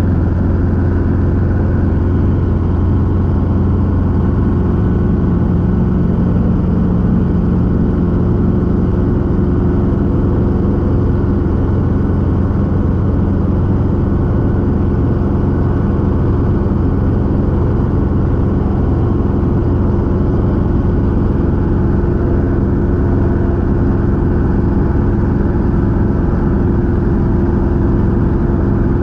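Robinson R22 helicopter in flight: its piston engine and two-blade main rotor give a steady drone that holds the same pitch and level throughout.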